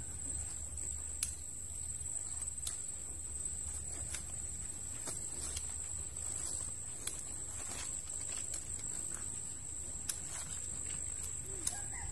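Footsteps and the rubber tips of aluminium crutches tapping irregularly on a dirt path, over a steady high-pitched insect drone and a low rumble. A chicken starts calling near the end.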